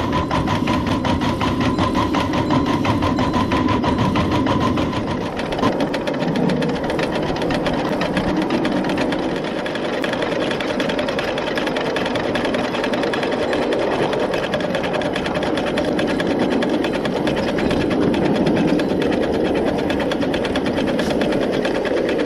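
Inch-and-a-half scale, 7½-inch gauge coal-fired live steam locomotive (a Long Island H-10 2-8-0) running along the track, with a fast, even mechanical clatter from its running gear and wheels.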